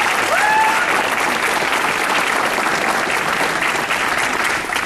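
Audience applauding, a dense patter of clapping that starts to die down near the end.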